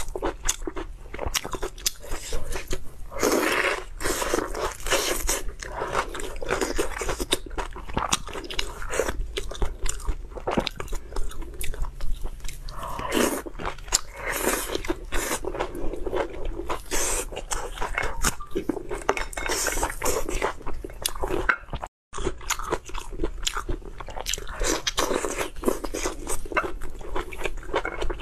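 Close-miked eating sounds of a person biting and chewing cooked lobster meat: a dense, irregular run of crunchy clicks and crackles.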